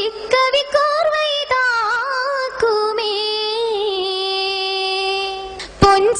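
A girl singing a Mappilappattu (Mappila song) solo into a microphone, in ornamented phrases that bend in pitch. Near the end she holds one long note, then breaks off with a short sharp pop before the next phrase.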